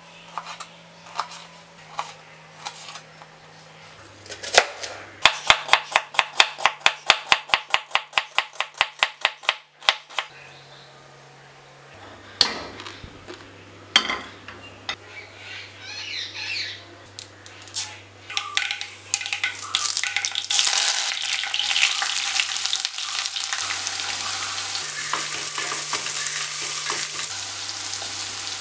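A knife chopping ivy gourds on a cutting board, with a run of fast, even strokes lasting several seconds, then a couple of knocks from the pan. After that, sliced onions and green chillies sizzle in hot oil in a frying pan, a steady hiss that builds toward the end.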